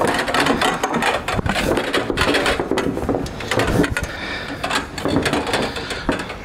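Coil of 3/4-inch copper pipe being handled on a wooden workbench: the copper turns knock, clink and scrape against each other and the bench in a busy run of small clatter that eases about four seconds in.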